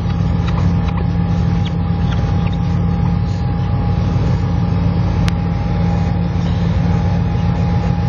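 Inside a car driving over a snow-covered road: a steady engine and tyre drone with a thin steady whine over it. A few light ticks, and one sharp click about five seconds in.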